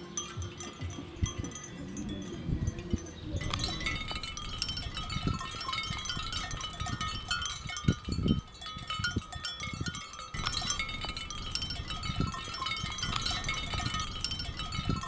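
Many livestock bells clinking in an irregular, overlapping jangle, growing denser about three and a half seconds in, with low rumbles underneath.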